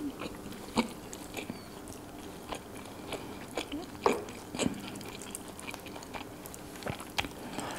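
Close-up eating sounds: chewing and fingers squishing food on a plate, a scatter of small wet clicks and smacks, a few of them louder.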